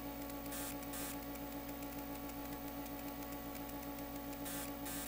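Steady electrical hum from running bench electronics, made of several steady tones at once over a faint hiss. Two short bursts of hiss come about half a second in and near the end.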